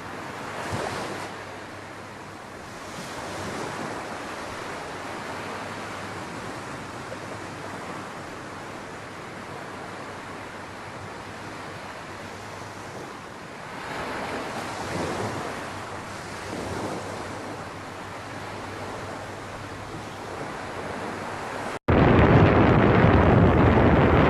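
Steady rushing noise that swells and fades a few times, then cuts abruptly to a much louder rush near the end.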